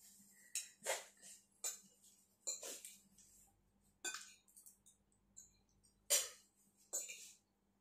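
Metal spoons clinking and scraping against ceramic plates and bowls during a meal, short separate clinks every half second to a second, with eating noises between.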